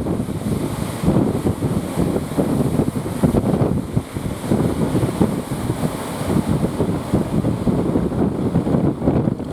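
Wind buffeting the microphone in a loud, gusty rumble, with the wash of sea surf beneath it.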